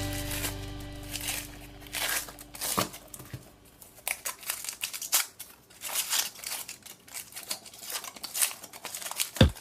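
Irregular small clicks and crinkles, as of toys or plastic being handled, after a held musical tone fades away in the first second.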